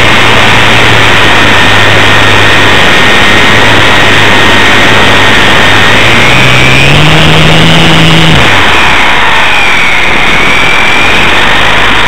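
Electric motor and propeller of an RC Super Cub LP whining under heavy, distorted wind rush. About six seconds in, the pitch rises as the throttle is opened. A little past eight seconds the low motor note drops away, leaving a wavering high whine over the wind.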